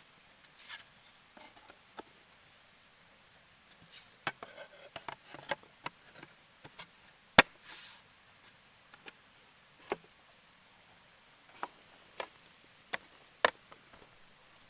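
Scattered sharp wooden clicks and knocks, a dozen or so at uneven intervals, the loudest a single crack about seven seconds in.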